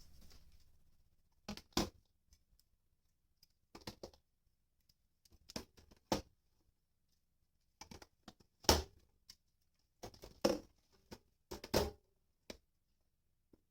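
Irregular knocks and clunks of hard objects being handled, about a dozen in loose clusters, with quiet between them.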